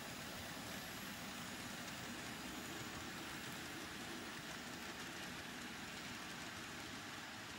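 N scale model passenger train rolling along the track: a steady rattling hiss of small metal wheels on rail as the cars pass.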